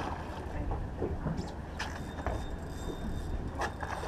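Steady low rumble aboard a small fishing boat on the water, with a few sharp clicks and knocks from gear on deck.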